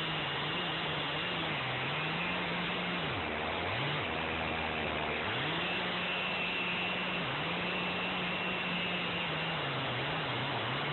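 Gas chainsaw cutting into a large log at high revs, its engine pitch wavering as it works under load. About three seconds in it drops to idle for a couple of seconds, then revs back up and cuts on.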